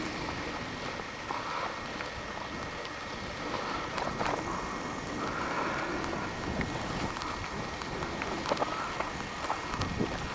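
Bicycle rolling along a dirt trail: a steady rolling noise with scattered clicks and rattles from the bike.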